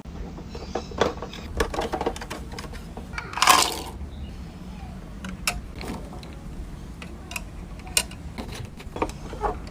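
Small plastic toy pieces being handled, with many light irregular clicks and taps, and one louder rustle about three and a half seconds in.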